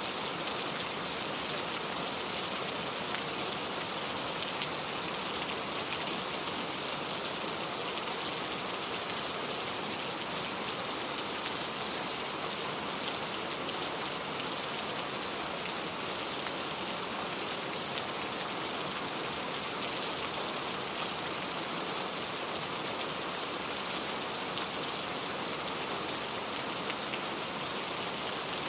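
Steady rain falling, with a dense patter of raindrops hitting surfaces.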